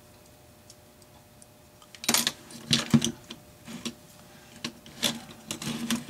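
Irregular clicks and knocks of the Lionel 182 toy crane's metal cab and mechanism being handled and turned over on a bench, starting about two seconds in, loudest in the first second of handling.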